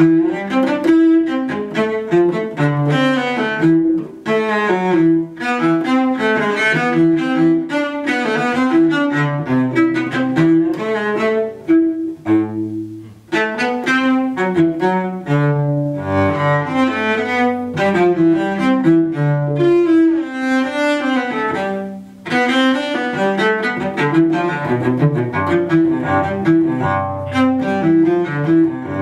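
Solo cello played with the bow: a quick, continuous run of changing notes. There are brief breaks in the phrasing about 4, 13 and 22 seconds in, and a long low note is held under moving upper notes from about 16 to 22 seconds in.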